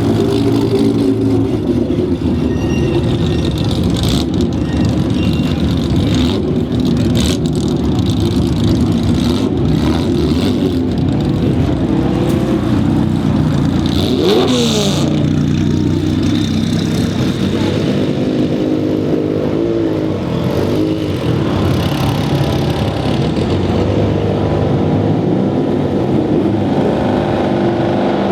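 Several Porsche car engines running together, with one engine revved about halfway through, its pitch rising and falling.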